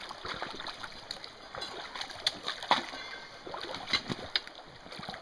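Boots splashing as people wade through a shallow, rocky creek, over the steady rush of the running water. Several sharper splashes come in the second half.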